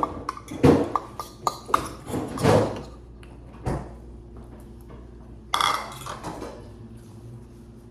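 Dishes and cutlery clinking and knocking together in a string of short clicks over the first few seconds, then a brief louder scrape or rustle about five and a half seconds in.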